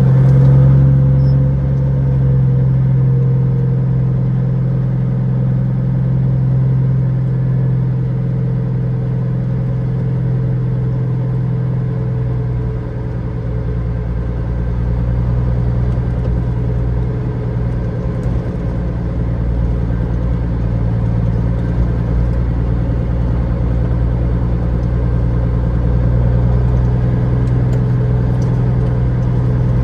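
Caterpillar 3406E inline-six diesel in a semi truck running steadily at low revs as the truck moves slowly, heard from inside the cab, easing off briefly about halfway through.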